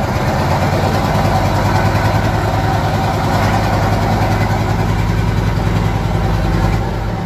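UD Nissan V8 diesel truck engine running steadily, its low even firing unbroken; the deepest part of the sound drops away near the end.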